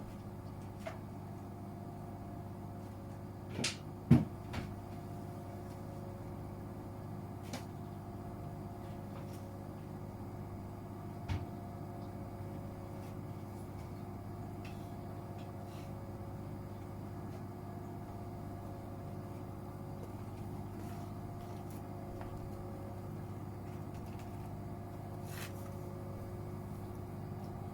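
Gorenje UseLogic 65165 front-loading washing machine running with a steady motor hum, broken by a few short knocks, the loudest about four seconds in.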